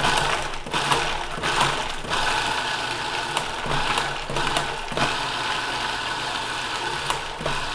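Food processor run in repeated pulses, its motor humming and its blade chopping walnuts, onion, garlic and raw mushrooms to a coarse crumb, with short knocks as the pieces are thrown against the bowl.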